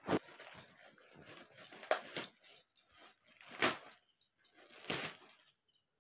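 White plastic courier mailer being torn open and handled, giving several short crinkling rustles a second or two apart.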